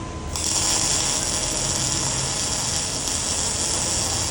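Weldcom V2000 MIG welder striking an arc and welding, with a steady crackling hiss that starts a moment in and holds.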